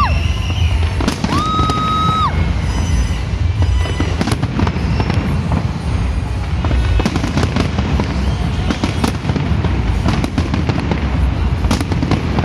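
Fireworks bursting and crackling without pause over a deep continuous rumble, with music playing under it.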